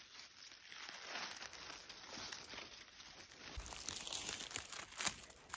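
Rustling and crackling of grass and dry leaf litter being parted by a gloved hand picking mushrooms, with a soft low bump a little past halfway.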